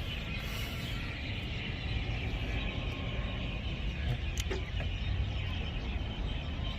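Lexus LS430's 4.3-litre V8 idling steadily with a misfire on cylinder 8, which the mechanic puts down to a faulty ignition coil or injector.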